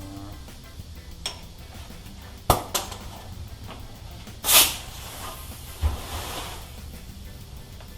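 Workshop handling noises: two sharp knocks about two and a half seconds in, a short loud hissing rush about four and a half seconds in, and a low thud about a second later.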